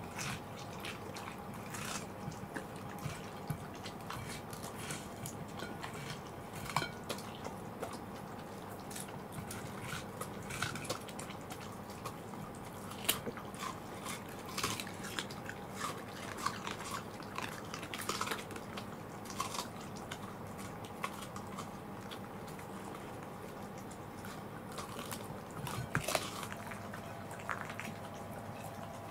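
Two Welsh corgis biting and chewing watermelon off plates: a scatter of short, irregular crunches and smacks, ending with the dogs licking the plates.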